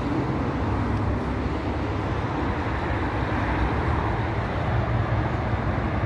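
Steady road traffic noise, an even low rumble with no distinct events.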